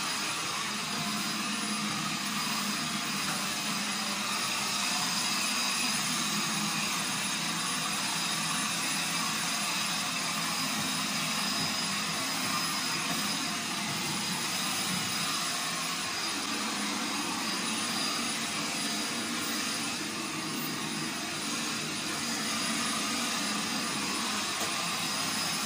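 Stick vacuum cleaner running steadily while being pushed over the floor: a constant whine over a rush of air.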